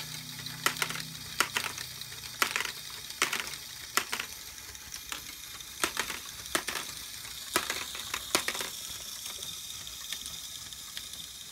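LEGO Technic Great Ball Contraption module running: its gears and rotating arms give a steady plastic rattle, with sharp clicks and clacks as the small plastic balls are picked up and dropped. The clicks come every half second or so and thin out near the end, leaving only the steady rattle.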